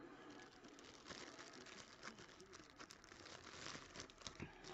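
Faint crinkling and rustling of clear plastic wrapping being handled and crumpled while a trading-card pack is unwrapped.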